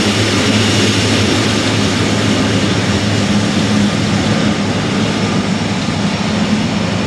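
Air China Cargo Boeing 777F's GE90 turbofan engines running at taxi power as the freighter rolls away: a steady jet roar with a low hum and a faint high whine.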